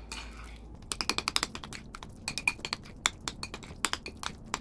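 Utensil stirring guacamole in a bowl: quick, irregular clicks and clinks as it knocks against the bowl, picking up about a second in.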